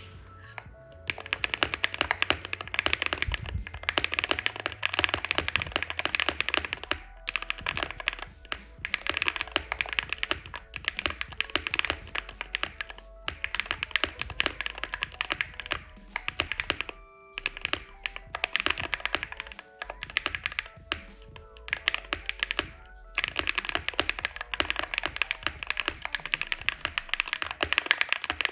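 Typing on a Wooting 60HE keyboard fitted with Gateron Jade magnetic Hall-effect switches: dense runs of clacky keystrokes broken by short pauses every few seconds. Quiet background music plays underneath.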